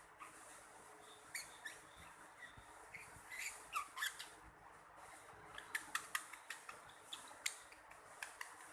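A small animal making a string of short, high squeaks and chirps, some gliding in pitch, mixed with sharp clicks and spaced irregularly.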